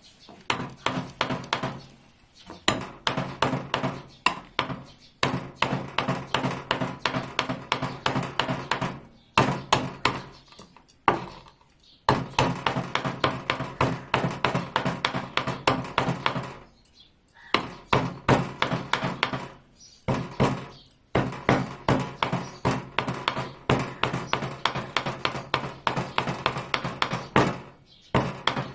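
Black peppercorns being pounded with a pestle: rapid, even strikes, several a second, in runs broken by short pauses.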